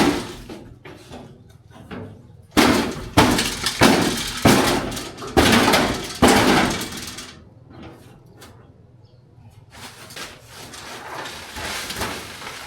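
A series of loud, sharp bangs and clatters, about six hits in quick succession, each ringing briefly, then quieter knocking.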